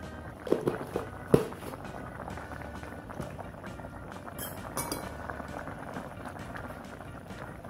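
Fish-innards soup bubbling at a simmer in a wok, with a few sharp clinks about half a second to a second and a half in, the second-last the loudest. Near the end a ladle stirs the broth.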